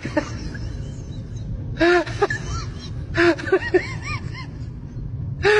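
Prairie dog giving short, arching chirps in quick little groups over a steady low rumble.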